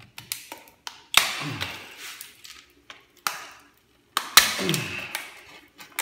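Plastic router case and circuit board clicking and cracking as the board is pried out of the case by hand, with two louder snaps, about a second in and again just past four seconds.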